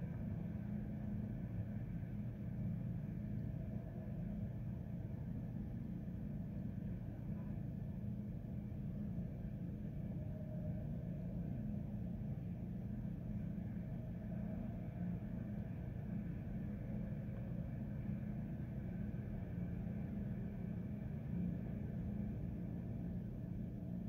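A steady low rumble that holds even throughout, with no music or distinct events in it.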